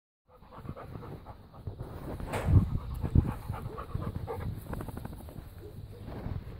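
A young dog panting close to the microphone, with a loud rustle and thump about two and a half seconds in and another just after three seconds.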